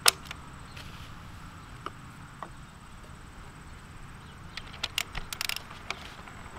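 Ravin R26 crossbow's crank cocking handle being worked: one sharp click at the start, a couple of faint clicks, then an irregular run of clicks about five seconds in.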